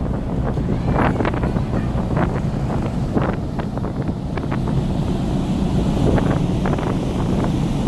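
Wind buffeting the microphone in irregular gusts on the open deck of a car ferry under way, over a steady low rumble.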